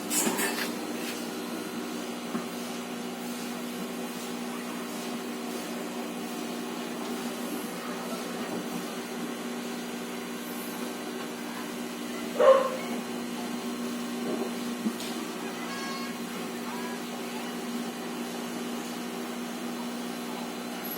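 Microwave oven running a short heating cycle with water inside after a magnetron repair: a steady hum from the transformer, magnetron and fan, a sign the magnetron is working. A dog barks once about twelve seconds in, the loudest sound.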